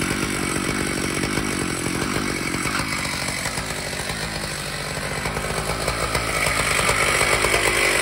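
Large Stihl MS 881 two-stroke chainsaw mounted in a chainsaw mill, running steadily at idle. It grows louder about three-quarters of the way through.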